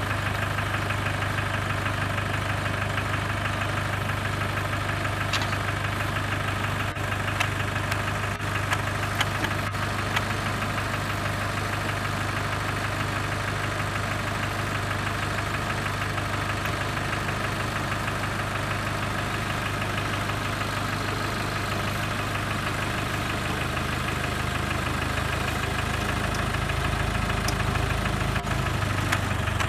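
Vehicle engine idling steadily, a low, even hum, with a few faint clicks about a quarter of the way in.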